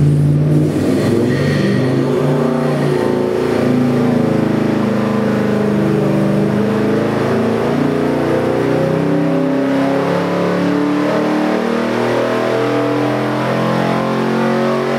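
427 cubic-inch small-block Chevy V8 crate engine, carbureted with a Dart block and AFR heads, running a wide-open dyno sweep pull under load. Engine speed climbs steadily from about 2,100 to over 5,000 rpm.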